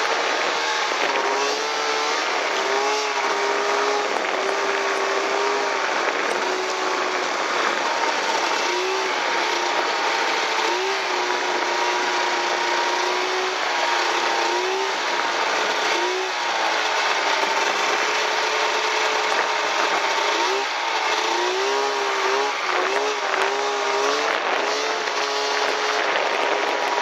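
Snowmobile engine running steadily under way, its pitch dipping and climbing back every few seconds as the throttle is eased and reopened, over a constant rushing hiss.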